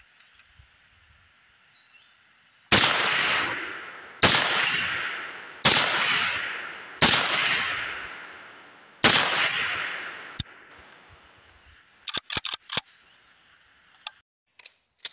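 M1 carbine firing five single shots about a second and a half to two seconds apart, each crack followed by a ringing echo that dies away. A few light clicks follow near the end.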